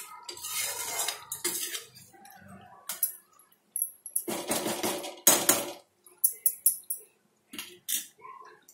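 A metal ladle clinking and scraping against an iron kadai and being set down, in several short bursts of knocks and scrapes, the loudest about five seconds in.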